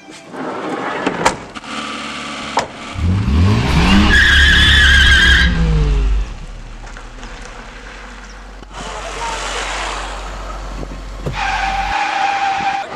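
A minivan's sliding door slams shut about a second in. Then the engine revs up and the van pulls away, with a loud tyre squeal as it goes. Vehicle noise carries on as it drives off.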